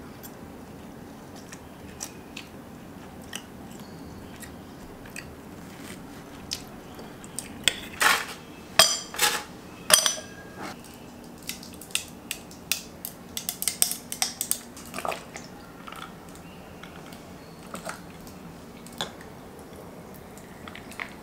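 Ice cubes dropped one by one into a tall glass pitcher, each landing with a loud, sharp clink from about eight to ten seconds in. A quick run of lighter clinks follows as they settle. Before that come a few light taps of a fork on a ceramic plate.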